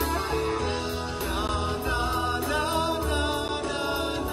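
A live band playing: electric guitars over bass and drums, with a steady beat.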